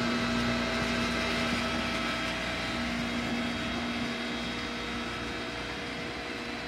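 Electric pump motor of an aviation fuel station running steadily with a hum, just switched on for fueling.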